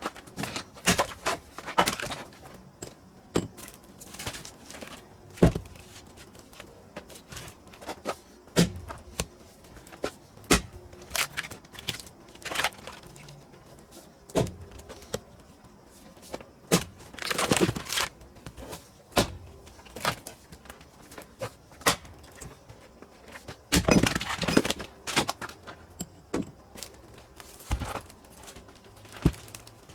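Pine firewood being split by hand: a series of sharp, irregular knocks of steel striking wood, about one every second or two. Two longer stretches of clattering and rustling, about halfway through and again about two-thirds through, are split pieces being handled.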